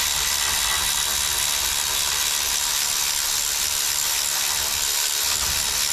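Cordless electric ratchet running steadily, backing a damaged M10x1.25 bolt out of a thread-restoring nut held in a vise, which straightens the bolt's threads.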